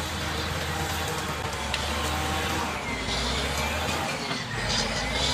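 Caterpillar D7G bulldozer's diesel engine running steadily under work, with a few knocks and a faint high whine that dips and rises again in the second half.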